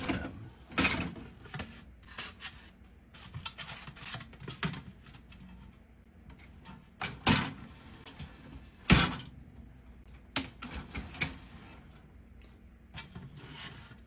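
Dishes and a mug being handled in a small countertop dishwasher's wire rack: irregular clatters, clicks and knocks against the rack, the sharpest about one second in and around nine and ten seconds in.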